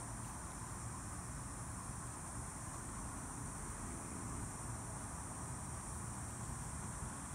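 A steady, high-pitched chorus of insects such as crickets or cicadas, unbroken and even, over a low steady rumble.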